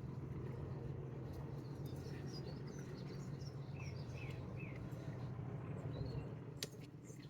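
Small birds chirping and singing over a steady low background rumble, with a couple of sharp clicks near the end.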